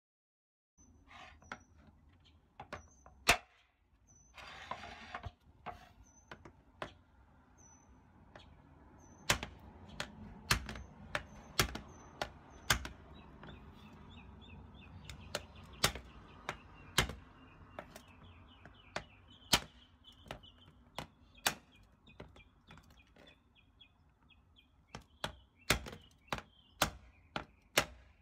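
Metal meat-tenderizer mallet knocking on a cooked lobster claw to crack the shell: about a dozen sharp knocks, irregularly spaced, coming faster near the end. Faint bird chirps and a short trill sound in the background.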